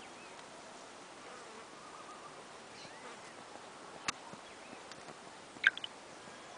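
Faint, steady outdoor background with insects buzzing. There is a single sharp click about four seconds in and a brief cluster of high chirps near the end.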